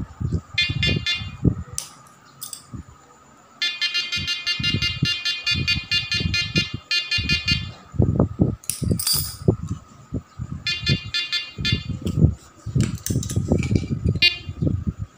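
Modified audio output of a homemade Admiral VLF metal detector making comic electronic noises: several bursts of a harsh, high buzzing tone, the longest about three seconds, among rapid irregular low blips.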